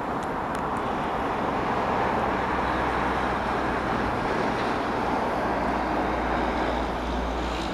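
Steady rolling noise of a Union Pacific intermodal freight train passing, with a low, even hum underneath.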